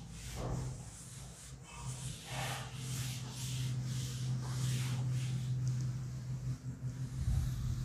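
Chalkboard eraser rubbing across a chalkboard in repeated sweeping strokes, wiping off chalk writing, over a steady low hum.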